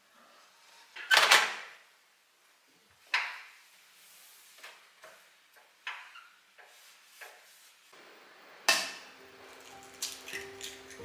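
Kitchen handling clatter: a few sharp knocks and clunks of dishes and appliance parts, the loudest about a second in and others spaced a few seconds apart. Soft music begins near the end.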